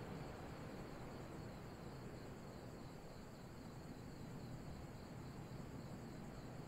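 Crickets chirping steadily over an even wash of ocean waves.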